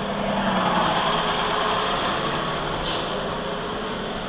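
Box truck's engine running as it turns close past, loudest about a second in and easing off as it pulls away, with a brief air-brake hiss about three seconds in.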